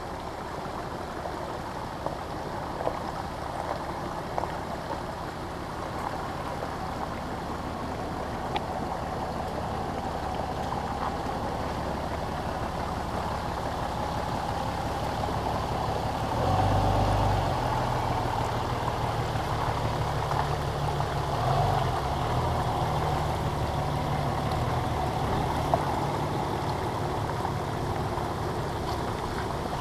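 Water running over a rock creek crossing. About halfway through, a pickup truck's engine comes in, louder for a moment twice in the following few seconds, then runs steadily to the end.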